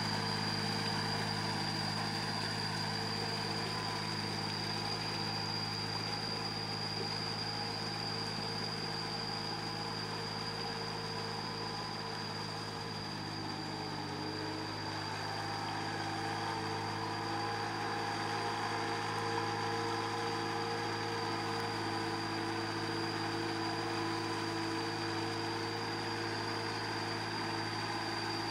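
Engines of small cage-wheeled tractors running steadily under load as they drag levelling boards through a flooded rice paddy. The engine note changes about halfway through.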